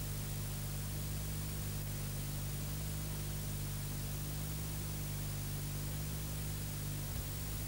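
Steady hiss over a low, steady hum, with nothing else sounding. The hum shifts slightly about seven seconds in.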